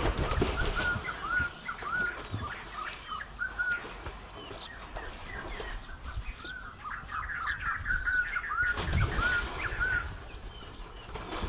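Water splashing as swimmers kick and stroke through a pool, loudest at the start and again about nine seconds in, while small birds chirp throughout in quick runs of short, high, arching notes.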